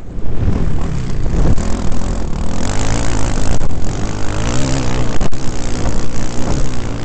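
Dirt bike engine revving up and down as it is ridden, the pitch rising and falling with the throttle, with wind buffeting a helmet-mounted microphone.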